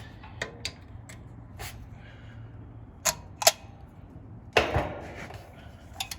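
Sharp metallic clicks and taps of tools and metal parts being handled on an air-conditioner condenser unit, with a short scraping rustle just before the five-second mark.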